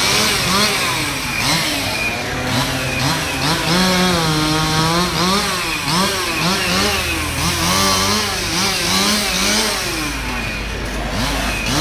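Two-stroke chainsaw engine revving up and down over and over, its pitch rising and falling, held high for about a second around four seconds in, then dropping to a lower steady run near the end.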